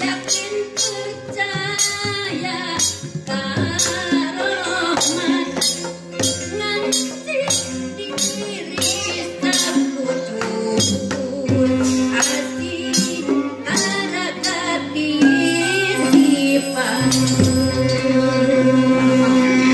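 Traditional Sundanese music: a woman singing a winding melody into a microphone, accompanied by kendang hand drums and a plucked kacapi zither. The drum strokes come thick and fast in the first half and thin out after the middle, while the singing and held zither notes carry on.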